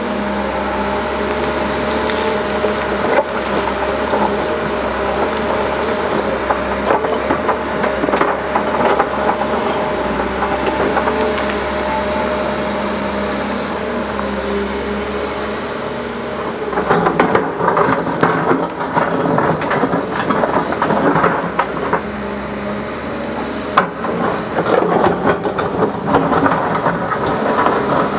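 Hyundai 320 LC-9 crawler excavator working, its engine and hydraulics giving a steady hum. Past the middle, the bucket scrapes and knocks against rocks and earth in a run of irregular clattering impacts.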